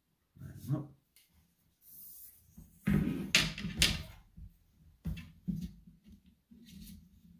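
Handling noises of a four-piece fly rod being put together: short knocks, rubs and scrapes as the sections are handled and joined. The loudest is a rubbing, scraping stretch about three seconds in, followed by a few lighter knocks.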